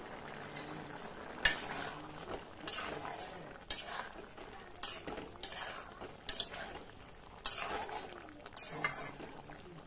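Metal spatula stirring a thick, simmering curry in a metal pan, scraping and clinking against the pan about eight times, roughly once a second, over a low sizzle of the boiling gravy.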